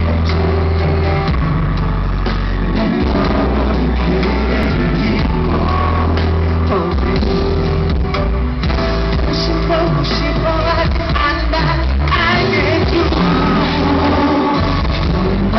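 Male vocal group singing a pop song live over amplified backing music with heavy bass, heard from within the audience.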